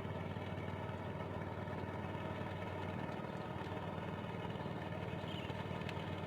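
An engine running steadily at an even, idle-like speed, a constant hum with no change in pitch.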